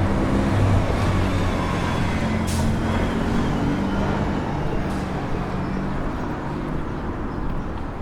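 City street traffic, dominated by a large vehicle's engine running close by as a steady low hum that slowly fades. Two short hisses come about two and a half and five seconds in.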